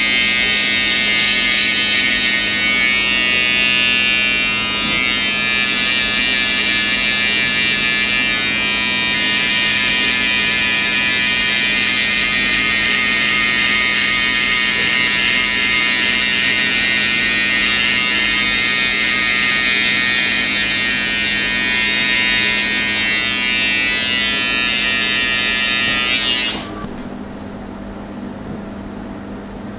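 Cordless hair clippers running with a steady buzz as they cut short hair. About 26 seconds in, the buzz cuts off abruptly, leaving a quieter low hum.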